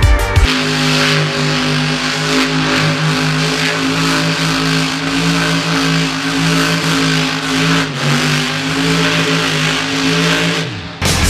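Monster truck engine held at high, steady revs while the truck spins donuts on dirt, its pitch dipping briefly about eight seconds in.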